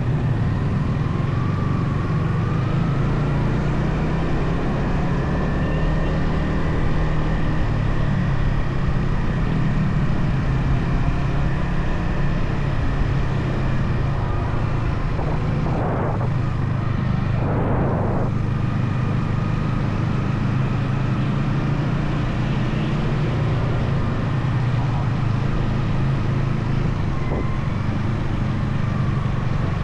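Yamaha XSR 155's stock single-cylinder engine and exhaust running steadily under way, with pitch drifting gently up and down as the throttle changes. Two brief rushes of noise come about 16 and 18 seconds in.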